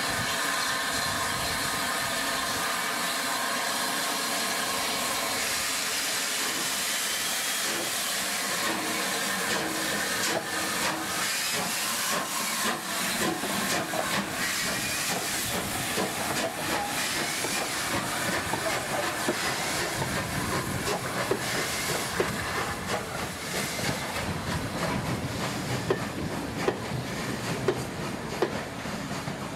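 Steam locomotive No. 34059, a rebuilt Southern Railway Battle of Britain class 4-6-2, hissing steadily as it vents steam at a standstill. From about ten seconds in the sound turns rough and uneven, with exhaust beats and knocks as the engine gets under way with its train.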